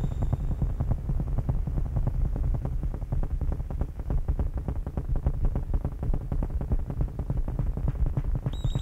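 Electronic synthesizer music: a low throbbing drone with a fast, even pulse. A thin, steady high whine fades out just after the start and comes back shortly before the end.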